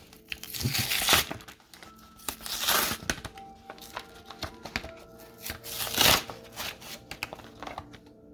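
Plastic packaging crinkling and tearing in a few rustling bursts as a Pokémon trading-card product is unwrapped, the loudest about six seconds in, with faint background music.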